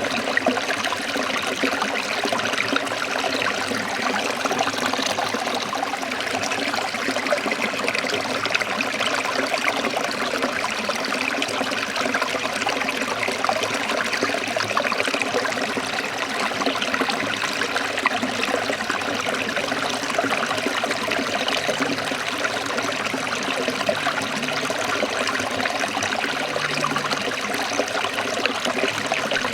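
Forest stream trickling steadily, a continuous even rush of water.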